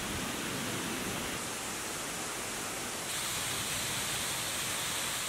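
Steady rushing hiss of falling water. About three seconds in it turns louder and brighter as a waterfall pouring down artificial rock comes in.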